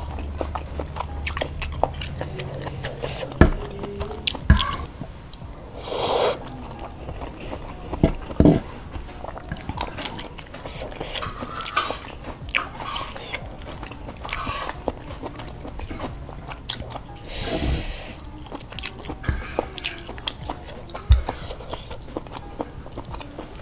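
Close-up eating of noodle soup: slurping, chewing and mouth clicks, with sharp knocks of a metal fork against a wooden bowl. Two longer slurps come about six seconds in and again past the middle.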